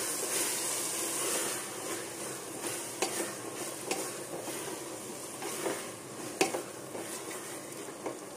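Spatula stirring and scraping mutton keema in a pressure cooker while the mince sizzles steadily as it fries. A few sharp knocks of the spatula against the pot come through, around three, four and six and a half seconds in.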